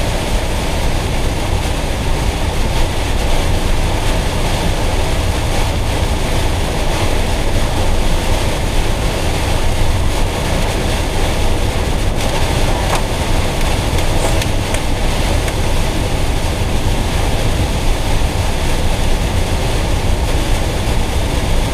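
Steady noise inside a Citroën Jumper van's cab at motorway speed in a heavy downpour: rain on the windscreen and roof and tyres on the wet road over a low road rumble.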